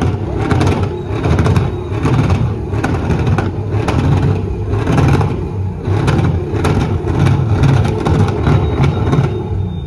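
A show truck's engine revving hard over and over, in surges about twice a second, loud and close.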